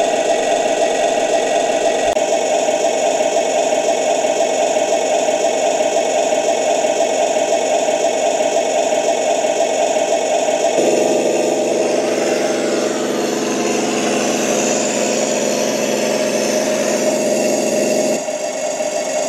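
Sound module of a Torro 1:16 Leopard 2A6 RC tank playing a simulated tank engine through its speakers. About eleven seconds in, the engine note changes to a buzzier, evenly pitched tone and drops back near the end. Gliding whines from the model's electric drive motors come and go as the tank turns.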